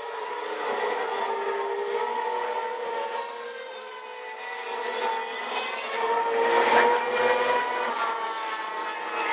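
Formula One cars' 2.4-litre V8 engines at high revs as the cars pass one after another through a fast corner, the high whine gliding up and down in pitch and loudest about seven seconds in.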